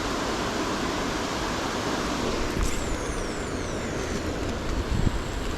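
Wind blowing across the microphone: a steady rushing noise with an uneven low rumble that swells about five seconds in. A faint high falling whistle comes about halfway through.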